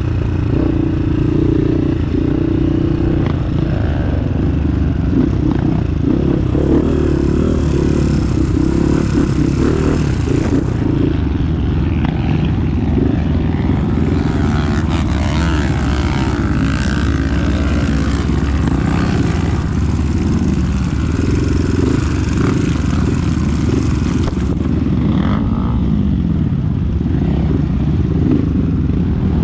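Off-road trail motorcycle engine running under way on a dirt trail, its note rising and falling as the throttle is worked.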